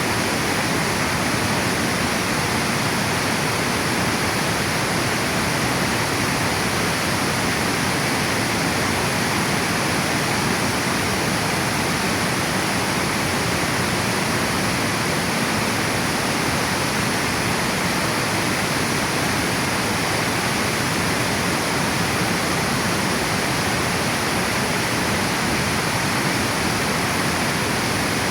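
Water pouring over a river dam: a steady, unbroken rush of falling water.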